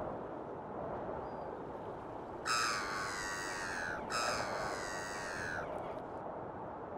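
A large bird gives two long, harsh calls in a row, each about a second and a half, over a steady background rush.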